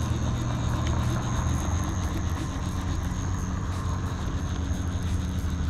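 Steady outdoor background: a low, even hum with a thin, steady high-pitched whine above it and no distinct events.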